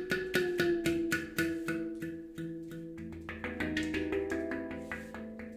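Steel Monkey handpan tuned to an E Romanian Hijaz scale, played with the fingers: a quick run of struck notes, each ringing on and overlapping the next.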